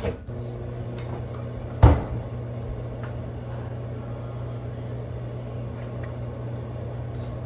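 A steady mechanical hum, like a household appliance's motor running, with a sharp knock about two seconds in.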